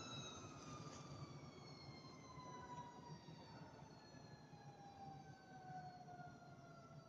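A motor on a CNC knife cutting machine winding down after the cut: a faint whine sliding slowly and steadily down in pitch over a low rumble.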